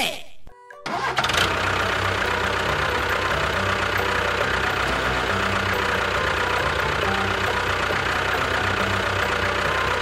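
Tractor engine starting about a second in, then running steadily at an even level.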